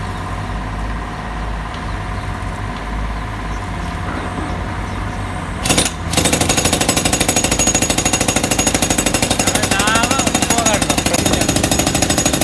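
IHI 30 mini excavator running steadily, then just before six seconds in a loud bang and a rapid, even hammering begins, about ten blows a second, like a hydraulic breaker pounding.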